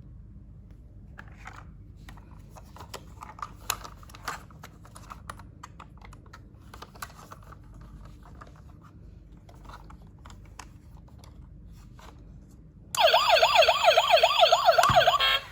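Light clicks and scratches of a small plastic toy being handled. About thirteen seconds in, a toy police car's electronic siren starts, loud and warbling fast up and down, and it stops after about two seconds.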